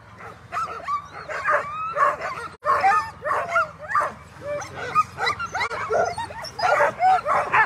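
Several Alaskan huskies of a sled dog team barking, yipping and whining while they wait to start, many short overlapping calls rising and falling in pitch.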